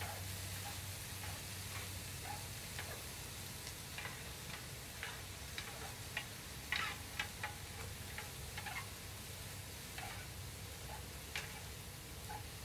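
Bean sprouts and beef brisket sizzling on a hot griddle pan, under irregular light clicks and taps of wooden tongs against the pan as the food is tossed. A quick run of louder clicks comes about seven seconds in.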